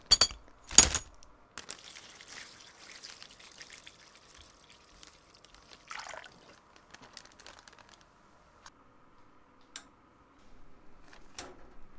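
Two sharp knocks in the first second, then liquid pouring and trickling into a plastic bag of rusty screws and bolts, followed by scattered light clicks.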